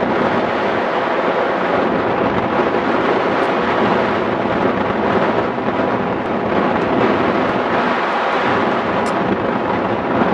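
Loud, steady rush of airflow buffeting the microphone of a camera mounted on a hang glider's frame in flight.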